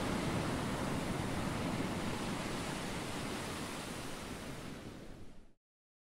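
Ocean surf washing on a shore, a steady wash of waves that fades slightly and then cuts off a little before the end.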